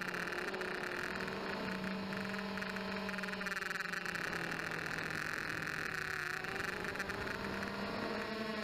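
Blade 200QX quadcopter's motors and propellers whining in flight, heard through its onboard camera's microphone, with several pitches that drift up and down as the throttle changes.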